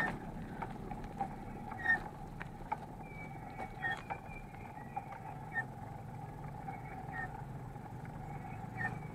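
Mountain bike rolling along a wet paved road: steady tyre and road noise with scattered small clicks and rattles from the bike.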